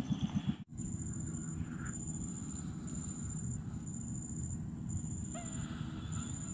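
Ambience with an insect's high thin chirp repeating about every half second over a steady low rumble, and a short pitched call about five seconds in. A fast low pulsing at the start cuts off abruptly.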